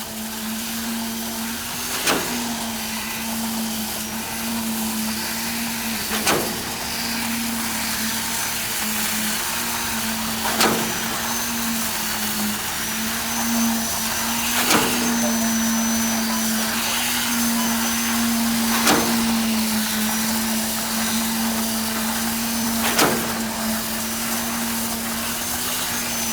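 Construction machinery running steadily at a concrete pour, a constant engine hum with a sharp clack repeating evenly about every four seconds.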